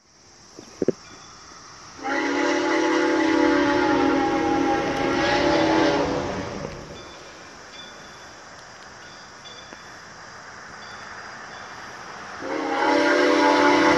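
Soo Line 1003 steam locomotive's chime whistle blowing a long blast of several tones together for about four seconds. It sounds again near the end.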